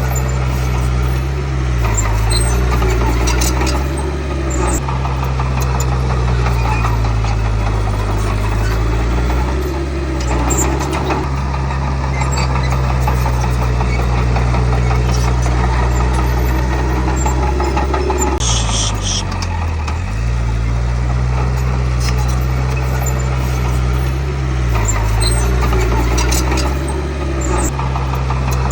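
Heavy diesel engine of a Komatsu D31P crawler bulldozer running under working load, its pitch dipping several times as it lugs and recovering, most deeply about two-thirds of the way through. A brief high squeal comes as that deepest dip begins.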